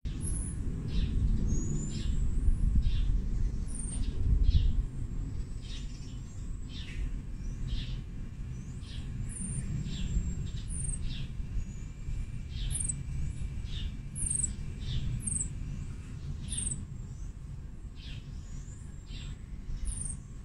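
Baby marmoset making repeated very high-pitched chirps, about one or two a second, over a steady low rumble.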